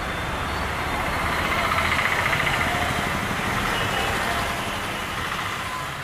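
Passenger boat's engine running steadily under way, a pulsing low rumble under water and wind noise; it begins to fade near the end.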